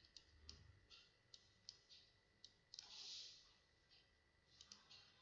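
Faint, irregular clicks, about a dozen, from a computer mouse while lines are drawn on screen, with a soft hiss about three seconds in.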